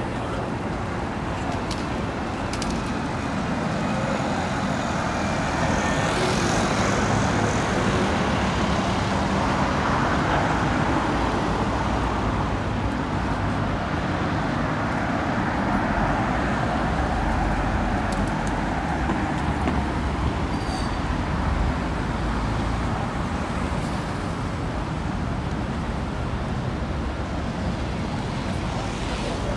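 Road traffic on a busy city street: cars passing steadily, getting a little louder through the middle as vehicles go by.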